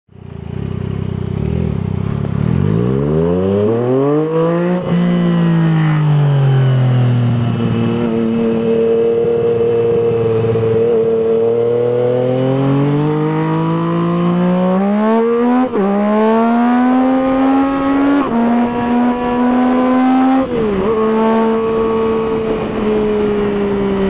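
Yamaha Tracer 900's three-cylinder engine through an Akrapovič full titanium exhaust, heard from the rider's seat and accelerating hard. The revs climb and then drop sharply at each quickshifter upshift, about 5, 16, 18 and 20 seconds in, before settling into a steady high-speed cruise.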